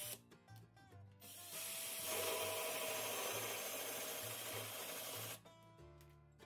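Ryobi cordless drill driving a 3.1-inch hole saw through the side of a plastic 5-gallon bucket, a steady grinding cut. It starts up about a second in, runs for about four seconds, and stops near the end once the hole is cut through.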